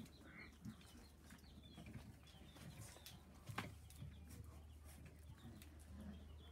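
Faint high squeaks and whimpers from five-week-old puppies at play, with scattered light taps and scuffles and one sharper click about three and a half seconds in.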